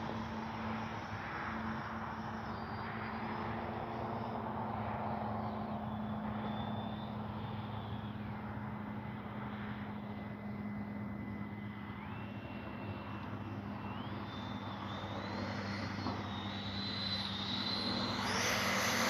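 Electric ducted-fan motor of a 70 mm E-flite F-16 RC jet flying at a distance: a thin fan whine that steps up in pitch several times as the throttle is advanced, getting louder near the end as the jet comes closer.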